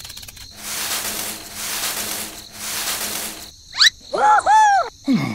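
Rustling and scratching in three stretches of about a second each, as of something clambering through a bushy tree. Near the end come a quick rising whistle and a squeaky, high-pitched cartoon-character voice chattering in arching squeals.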